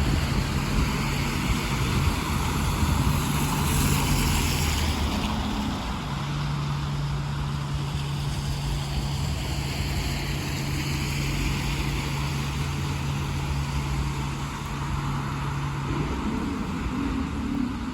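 Road traffic with buses on a wet road: a steady engine hum over the hiss of tyres on wet tarmac, with a louder hiss of a vehicle passing about three to five seconds in. Near the end the low hum gives way to a higher, wavering hum.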